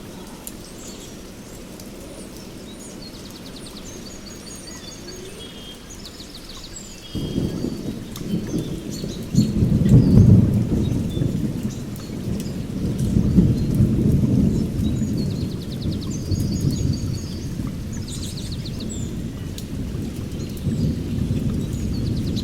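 Heavy rain falling on forest foliage, with birds chirping and trilling. About seven seconds in, a roll of thunder starts suddenly and rumbles on through the rest, loudest a few seconds after it begins.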